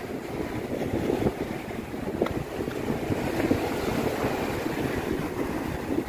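Choppy sea waves breaking and washing over a rocky shore, with strong wind buffeting the microphone.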